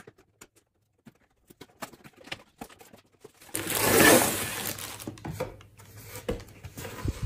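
Cardboard packaging handled with small clicks and taps, then a loud crinkling rustle of a clear plastic bag as the wrapped brush is pulled out of the box, loudest about four seconds in. More taps follow as the cardboard insert is lifted out.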